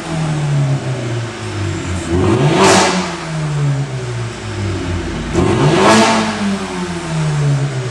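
Mercedes-AMG A35's tuned 2.0-litre turbocharged four-cylinder revved while stationary: the revs fall away, then are blipped up twice, about three seconds apart, each peak followed by a slow drop. The exhaust crackles as the revs come down.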